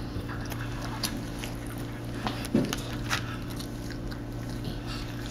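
A toddler eating at the table: a few small clicks and taps of a metal fork against a plate, with chewing, over a steady low hum.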